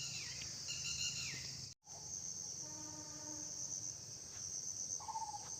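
Steady high-pitched chirring of crickets in forest after rain, with a few short bird calls over it, including falling whistles in the first second or so. The sound cuts out completely for a moment a little under two seconds in.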